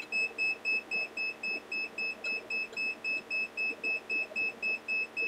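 Kaiweets KM201 multimeter's warning beeper sounding a fast string of short, high-pitched beeps, about four a second. It is the meter's high-voltage alarm, warning that the input is at the maximum of its range, about 600 V AC.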